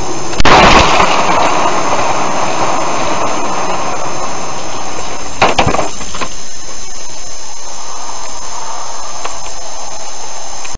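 A sudden loud crash as something strikes the car's windshield and shatters it, about half a second in, followed by a second, shorter sharp crack around five and a half seconds in. Under both runs the steady rush of road and wind noise of the moving car, heard from inside the cabin.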